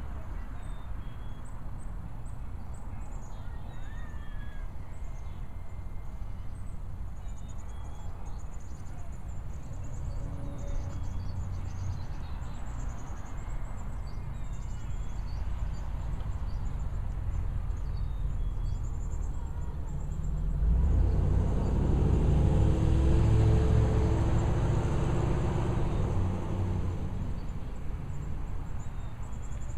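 Outdoor street ambience with a low rumble and small birds chirping. A car drives past, growing louder about two-thirds of the way in and fading before the end.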